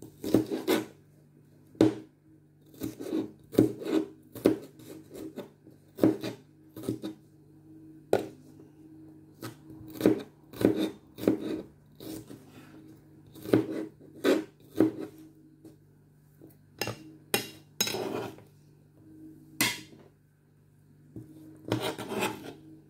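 Chef's knife chopping green bell pepper on a plastic cutting board: irregular knocks of the blade striking the board, some in quick runs, with short pauses between them. A steady low hum runs underneath.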